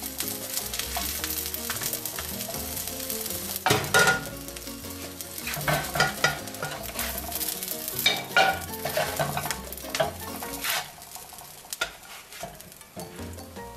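Quesadilla sizzling in oil on a hot iron pan, with a metal spatula scraping and knocking against the pan several times as it is lifted out. The sizzling weakens near the end once the pan is empty.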